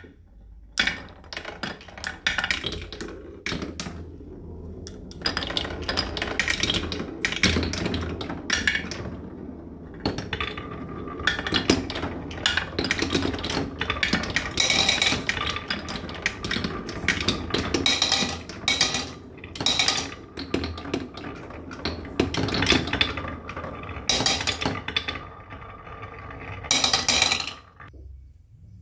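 Marbles rolling down a HABA wooden marble run: a steady rolling rumble along the plywood tracks, broken by many sharp clicks and clacks as they hit the wooden parts. It dies away near the end.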